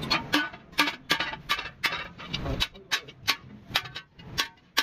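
A hand hammer striking a steel punch against a steel spade blade on an anvil. The strikes come in a steady run of sharp, briefly ringing metallic hits, about three a second.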